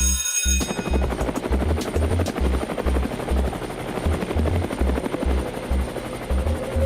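Helicopter-like rotor chopping that starts about half a second in, over background music with a steady bass beat.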